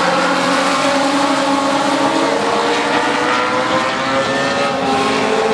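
A pack of Legends race cars on the track, their Yamaha 1200 cc four-cylinder motorcycle engines running at high revs. Several engine notes overlap at slightly different pitches, slowly rising and falling as the cars work through a turn.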